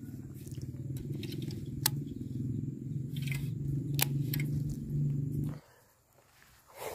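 Shimano Bantam XG baitcasting reel being cranked to wind in line: a steady low whirr with a couple of sharp ticks, stopping abruptly about five and a half seconds in.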